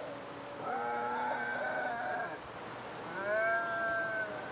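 Cats yowling at each other in a standoff, a cat and a bobcat facing off. The yowls are long, drawn-out wails that waver in pitch, two of them a second apart, after the tail of an earlier one.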